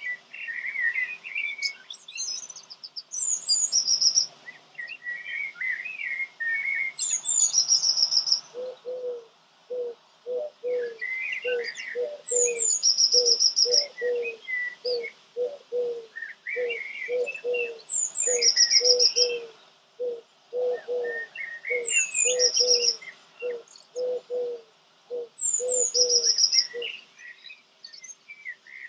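Songbirds singing: repeated phrases of high, quick chirps ending in short trills, every few seconds. Through the middle, a steady run of low pulses at about two a second goes alongside them.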